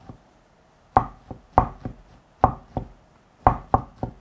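Kitchen knife chopping on a cutting board, mincing fresh shiitake mushroom finely: sharp knocks in short uneven runs of two or three, with brief pauses between.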